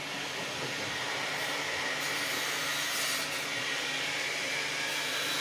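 A construction power tool cutting: a steady grinding, hissing noise with a faint high whine over it.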